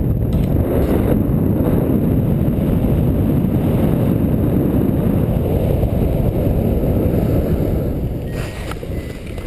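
Wind rushing over the camera microphone of a paraglider in low flight, a steady loud rumble. It eases near the end as the pilot comes down on the snow, with a few short knocks.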